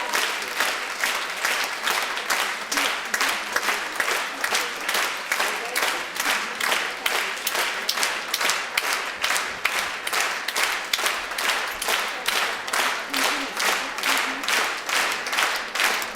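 Theatre audience clapping in unison: steady rhythmic applause at about two to three claps a second.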